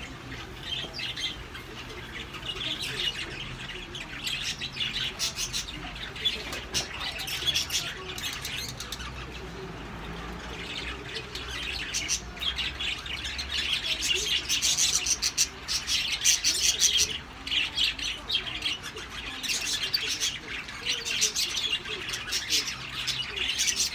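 Many birds chirping and squawking in a dense, continuous chatter that grows louder about halfway through.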